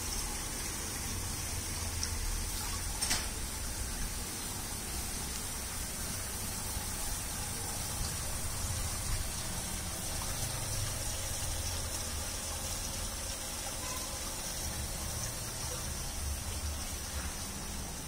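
Umbrella-jet (bell) fountain nozzles running, their thin domes of water falling back and splashing steadily into a shallow pool.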